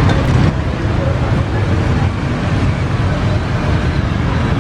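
Steady rumble of street traffic, with voices in the background.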